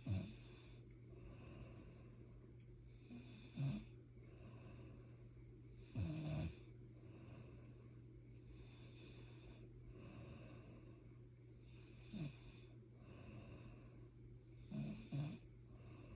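Snoring: soft rhythmic breaths broken by six short, loud snorts, over a steady low hum.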